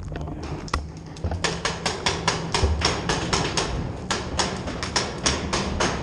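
Paintball markers firing: sharp pops in quick, irregular strings of several a second, some louder and closer than others.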